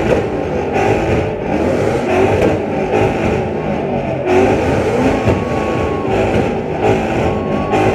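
Two Ford Mustangs revving their engines hard at the same time, with rapid repeated throttle blips that come about every half second. There is a brief dip about four seconds in.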